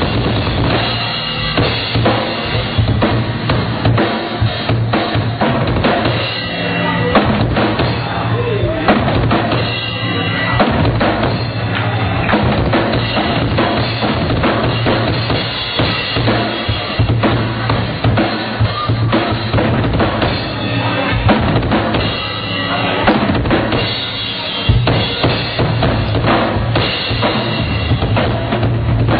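Drum kit played continuously, with dense bass drum and snare hits and rimshots, over a steady low drone.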